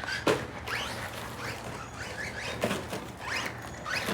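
Electric motor of an RC rally car whining up in a string of short rising bursts as it accelerates again and again, with a few sharp knocks from the car over the course.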